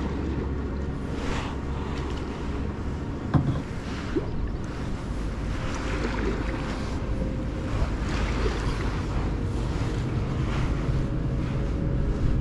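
Canoe paddle strokes splashing in the river water about every two seconds, over a steady rumble of wind on the microphone, with one sharp knock about three seconds in.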